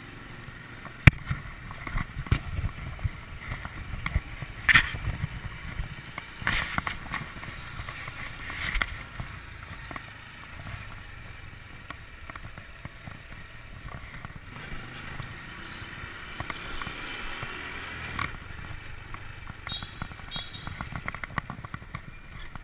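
Motor scooter ridden slowly over rough paving, heard through a camera mounted on it: a low engine and road rumble with many knocks and rattles, the sharpest about a second in.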